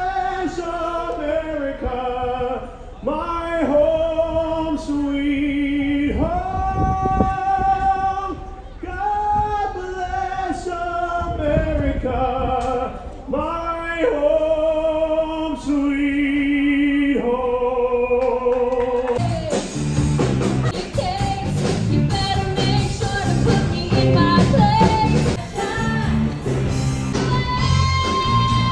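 Live band with a male singer, who holds long notes with vibrato. About two-thirds of the way through, the sound switches abruptly to a different song with a steady beat.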